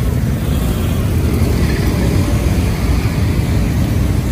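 Street traffic: a steady low rumble of motorbike and car engines.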